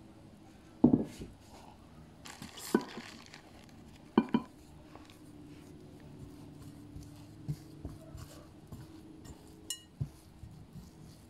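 Hands kneading soft yeast dough in a glass bowl, the bowl knocking and clinking as it is pressed and shifted. The loudest knock comes about a second in, more follow at about three and four seconds, and fainter clinks come later.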